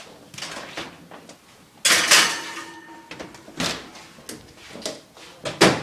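Kitchenware being handled while cooking: a series of knocks and clatters, the loudest about two seconds in with a short metallic ring after it.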